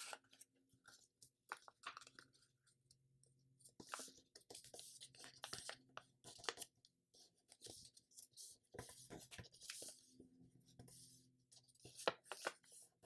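Faint rustling and crinkling of a sheet of printer paper being creased by hand into a paper airplane, in short scattered scrapes with a few sharper crackles.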